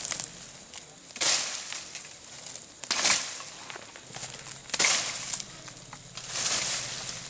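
A long wooden stick swung hard into thick brush and leaves: four loud swishing, crashing strokes, about one every two seconds.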